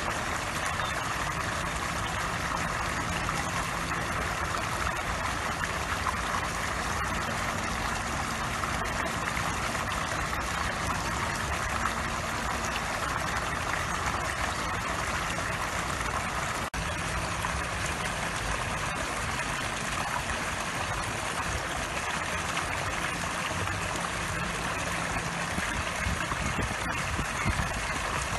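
Water jet from a squirrel-statue pond fountain splashing steadily onto the pond surface.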